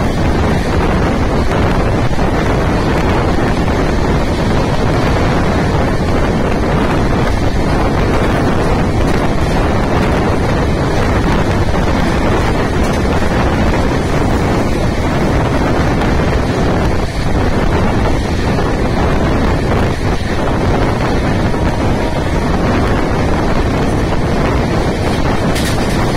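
Steady rush of wind buffeting the microphone over the running rumble of a moving train.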